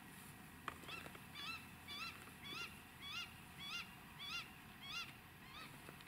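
An animal calling about ten times in an even series, a little under two calls a second. Each call is a short note that rises and falls. A single sharp click comes just before the series begins.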